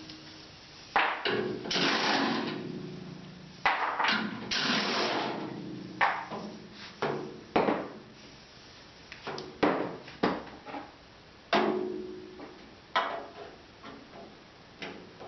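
Irregular metal knocks and clanks, about fifteen of them, some ringing briefly, with two short scraping sounds early on. These are hammer blows and knocks on the steel door frame of a 1967–72 Chevy C10 truck while it is being straightened to bring the hinges into line. The knocks grow weaker toward the end.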